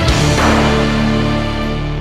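Background music: a held chord with a crash about half a second in.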